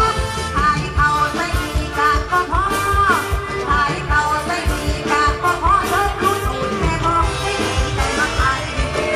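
Female singer singing an Isan mor lam song into a microphone over a live band, with a steady drum beat underneath.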